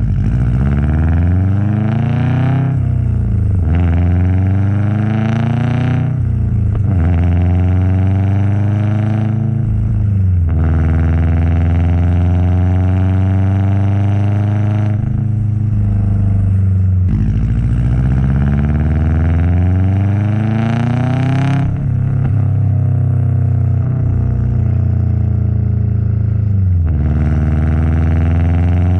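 Subaru WRX STi's turbocharged flat-four engine and exhaust, accelerating repeatedly through the gears: the pitch climbs in each gear, then breaks off and drops at each shift, about eight times, with the turbo fluttering as the throttle lifts between gears.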